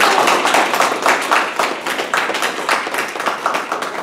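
Audience applause: many hands clapping densely together, easing off a little toward the end.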